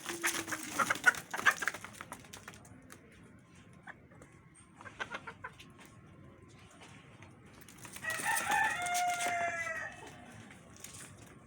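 A rooster crowing once, one call about two seconds long, starting about eight seconds in. Earlier the chickens make a short burst of clucking and rustling.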